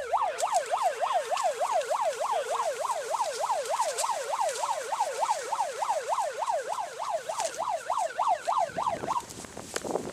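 Electronic siren sounding a fast yelp, its pitch sweeping up and down about three times a second. It cuts off suddenly near the end.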